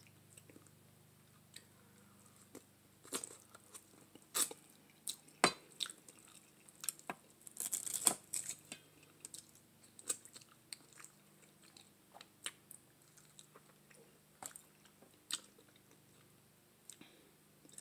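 A person chewing and biting meat off curried neck bones, with short wet mouth clicks at irregular intervals and a denser run of them about eight seconds in.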